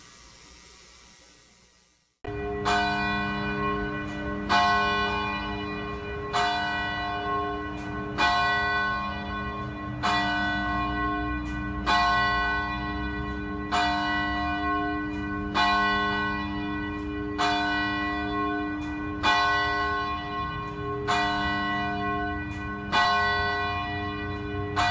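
A church bell tolling slowly, a single ringing stroke about every two seconds, starting about two seconds in.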